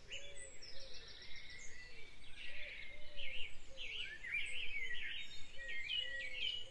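Several birds singing together, with quick high chirps, trills and warbles over a low note repeated about every half second. Near the end comes a run of short, falling chirps.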